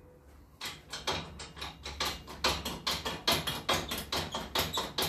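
A hydraulic shop press's pump working in quick, rhythmic strokes, about four a second, starting about half a second in, as the ram slowly pushes a bearing into a Land Rover swivel ball.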